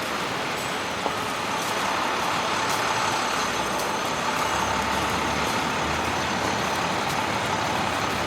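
Steady city street traffic noise, with a heavy vehicle rumbling past in the middle.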